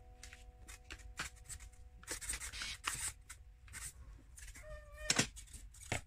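Scattered light clicks, knocks and rattles of a smart door lock's plastic and metal parts being handled, with a brief pitched tone about five seconds in.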